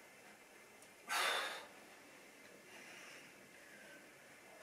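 A woman exhales sharply once, about a second in, breathing out with effort during an ab workout. Faint breathing follows.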